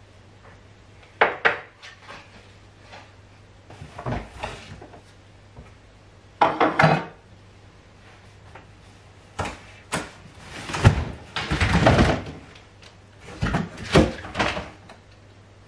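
Belongings and cardboard boxes being handled during unpacking: knocks, clatters and rustles in short clusters every few seconds, busiest in the second half, over a faint steady low hum.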